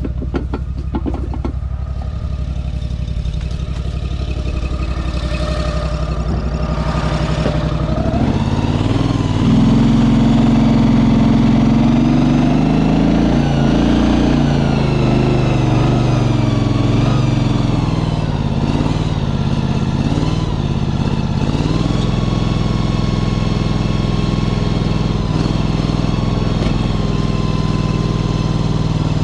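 Engine of a motorized shed mover running. It works harder from about eight seconds in, its pitch rising and falling as the machine is driven and steered, then settles into a steady run near the end.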